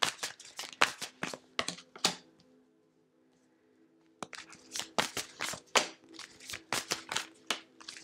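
Tarot cards being handled and laid down on a table: quick, irregular flicks and snaps of card stock, stopping for about a second and a half midway, then starting again. Faint steady background music underneath.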